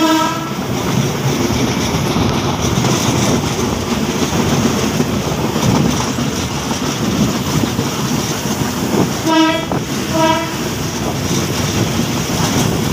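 Diesel railcar train running along the track with a steady rumble and wheel clatter, heard from an open side door of the moving train. A train horn sounds briefly at the very start, then gives two short toots about nine and ten seconds in, as the two trains close on each other on adjacent tracks.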